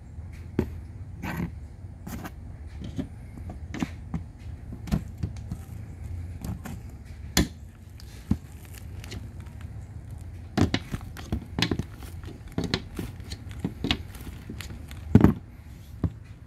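Irregular knocks and clicks of hard plastic and metal being handled: a plastic refrigerator shelf frame and a metal rod being pressed into its glued groove on cardboard. They come at uneven intervals, with a cluster in the second half and the loudest knock near the end, over a steady low background rumble.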